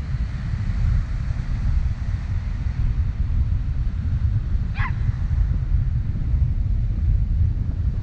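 Wind buffeting a GoPro's microphone in a loud, steady low rumble, over waves breaking and washing up a sandy beach. A brief high call sounds once, a little past halfway.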